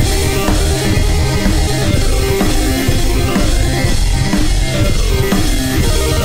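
Rock-style background music with a steady drum beat and guitar.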